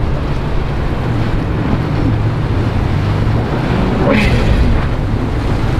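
Outboard-powered boat running past at speed: a steady low engine drone with the rush of its wake, and wind buffeting the microphone. A brief rise in hiss about four seconds in.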